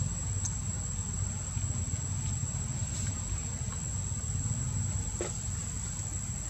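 Steady, high-pitched insect drone of the kind crickets or cicadas make, over a constant low rumble.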